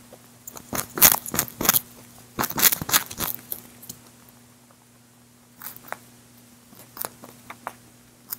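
Grey lop-eared rabbit chewing food close to the microphone: dense runs of quick clicks for the first three seconds or so, then a pause, then sparser clicks.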